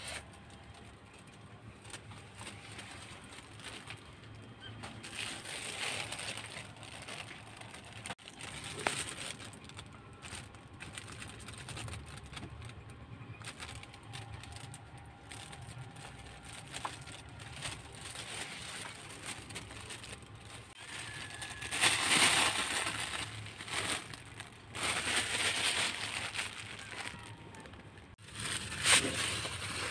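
Crackling rustle of a plastic bag being handled, in bursts, loudest about two-thirds of the way through.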